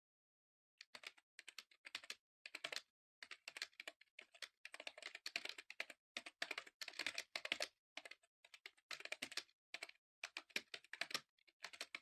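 Typing on an HP computer keyboard: quick runs of key clicks with short pauses between them, starting about a second in.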